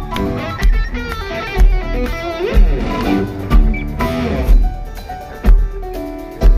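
Live rock band playing: electric guitar and flute over a heavy kick drum beat landing about once a second, loud and full.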